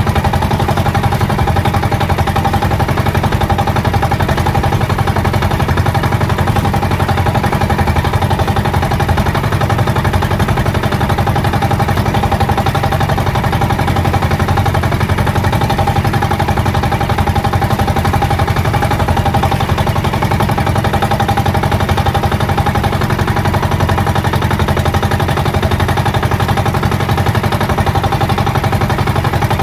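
Small outboard-style boat engine of a motorized outrigger boat running steadily under way at trolling speed, with a rapid, even putter.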